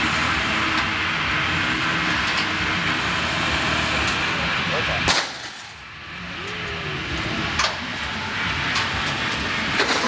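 Mitsubishi Pajero SUV crawling over a steel demonstration ramp: steady vehicle noise under background voices, broken by a few sharp knocks. The loudest knock comes about halfway through, and the sound drops away for a moment just after it.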